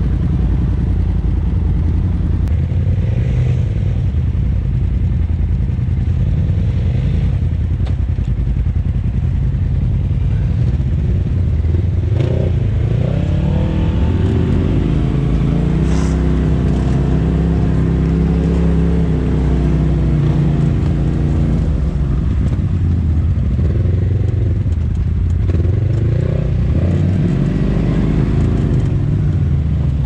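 Polaris RZR side-by-side engine running under way on a dirt trail. The revs climb about halfway through, hold high for several seconds, drop back, then rise and fall again near the end. There is one sharp knock about halfway.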